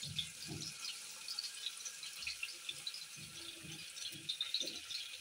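Sliced onions frying in oil in a nonstick wok, a faint, steady crackle of small pops, with a silicone spatula stirring and scraping through them several times.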